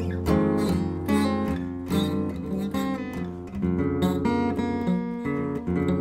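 Solo acoustic guitar playing an instrumental tune: single plucked notes and chords, one or two attacks a second, each left to ring over sustained bass notes.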